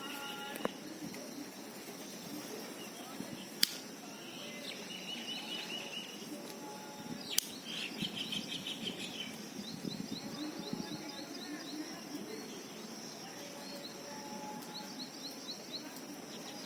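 Morning birdsong: small birds chirping and trilling on and off, with a quick run of short repeated chirps near the end, over steady background noise. Two sharp clicks, about four seconds apart, stand out in the first half.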